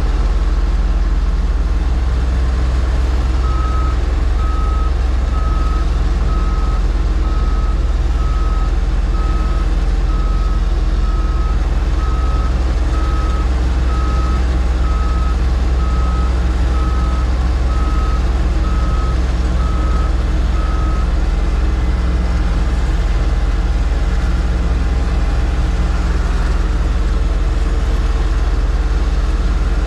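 Heavy engine running steadily while a backup alarm beeps about once a second, from a truck or machine reversing; the beeping stops about two-thirds of the way through.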